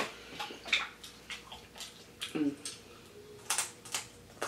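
Wet eating sounds from a seafood boil: a string of irregular lip smacks, slurps and sucks as sauce is sucked off fingers and crab legs.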